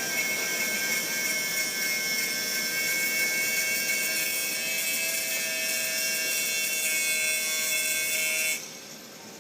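Electric arc welding: a steady hiss with a few high steady tones in it, which cuts off abruptly near the end as the arc is broken.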